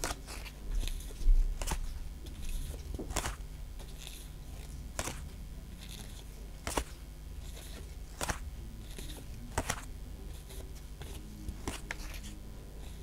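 Pokémon trading cards being flipped through one at a time, each card giving a short sharp snap against the stack, about one every one and a half seconds. A louder low bump comes about a second in.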